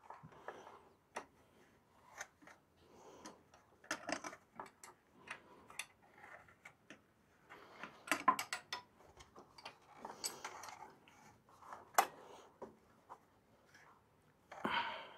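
Faint, irregular metallic clicks and clinks of a hand wrench working the bolts of the air cleaner band bracket in a Kubota BX1500's engine bay, with a few quicker runs of clicks now and then.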